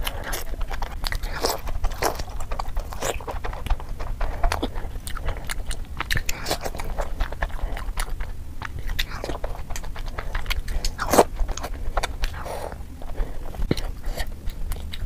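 Close-miked chewing and biting of soft, syrupy Indian sweets such as gulab jamun, with many irregular short mouth clicks and smacks.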